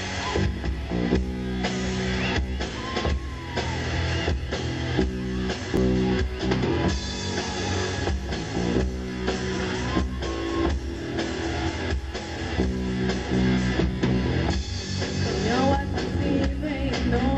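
Rock music: guitar chords over a drum kit beat, with repeated chord blocks.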